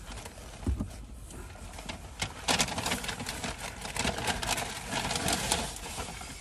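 Paper food bag rustling and crinkling as it is handled, with a few knocks at first; the crinkling gets louder and busier from about two and a half seconds in.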